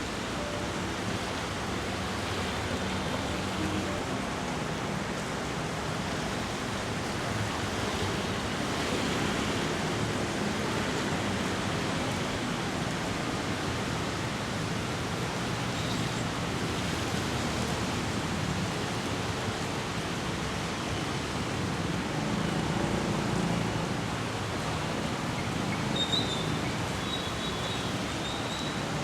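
Heavy rain falling on the street as a steady, even hiss, with a faint low hum of the street underneath.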